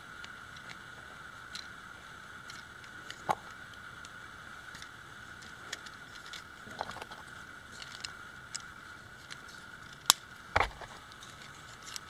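Plastic LEGO Technic parts and a 3D-printed wind-up motor being handled, with scattered light clicks and a sharp click followed by a heavier knock near the end.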